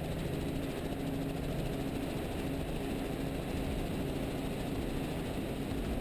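Tour helicopter's engine and rotor running steadily in flight, a constant mechanical hum with a low drone, as picked up by a camera mounted on the aircraft.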